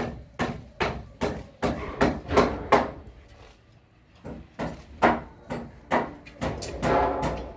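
Repeated hammer blows on a building site, about two to three strikes a second. They stop for about a second and a half in the middle, then carry on.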